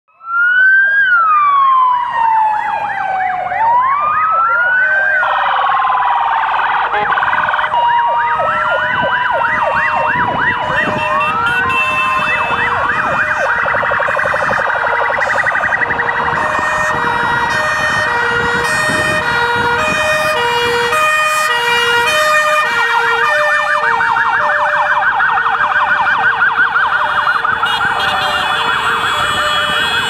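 Several police vehicle sirens sounding together. It opens with a single wail sliding down and back up. Within a few seconds more sirens join, fast yelping ones over a two-tone hi-lo siren alternating between two notes.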